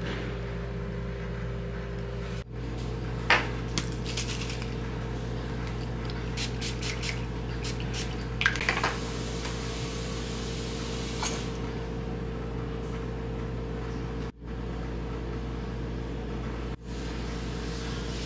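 Steady indoor machine hum with several fixed tones, like refrigeration or air-conditioning, with scattered light clinks and taps of dishes or utensils, twice broken off abruptly.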